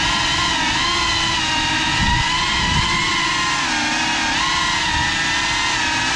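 Geprc Cinelog 35 cinewhoop drone's brushless motors and propellers whining in flight, a stack of pitches wavering up and down as the throttle changes, with a few low thuds about two seconds in.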